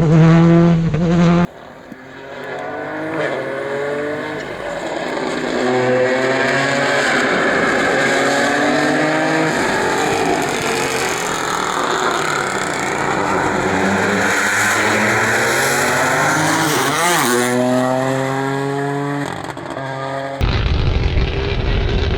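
Rally car engine at full throttle, climbing in pitch through several gear changes as it approaches, with a quick pitch sweep as it passes close by. Sudden cuts between clips come about a second and a half in and again near the end, where a lower, rougher engine takes over.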